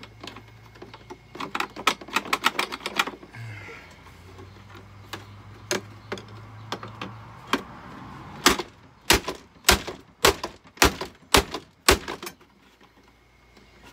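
Hard plastic clattering and knocking as a gray plastic housing is handled and broken apart. A quick run of light clicks comes early, then a series of about eight sharp knocks near the end, roughly two a second.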